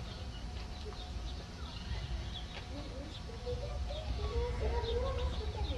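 Outdoor ambience: a low rumble with faint, scattered bird chirps, and distant voices that grow louder about three and a half seconds in.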